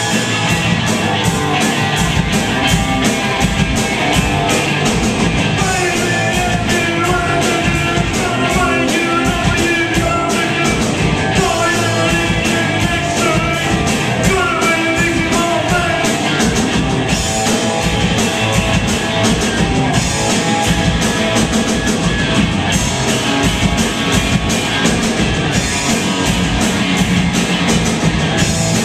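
A rock band playing live and loud, with driving drums and electric guitar keeping up a fast, steady beat.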